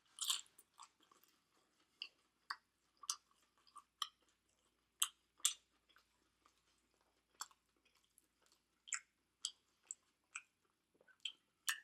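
A person chewing food close to the microphone: short, scattered mouth clicks and smacks at irregular intervals.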